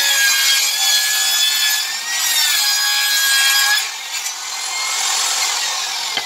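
Benchtop table saw ripping a wooden board: the motor whine dips under load as the blade cuts through. About four seconds in the cut finishes and the saw runs on freely, quieter, with a click near the end.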